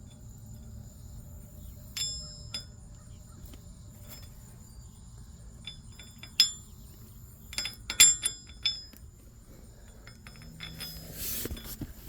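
Steel parts clinking: a few sharp metallic taps with a brief ring, loudest in a cluster about eight seconds in, as loose wheel studs and tools are handled. Behind them a steady high chirring of insects.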